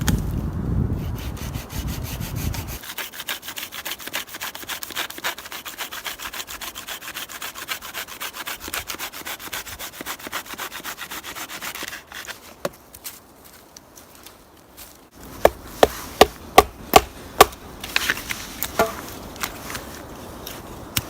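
Fast, even rasping strokes on wood for about nine seconds as wood is worked to make a fire, then a short pause and a run of sharp wooden knocks, several a second, as wood is chopped.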